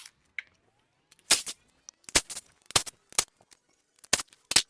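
About six sharp, separate metal knocks at irregular intervals, with silence between them, as the inlet manifold is worked loose from an engine during teardown.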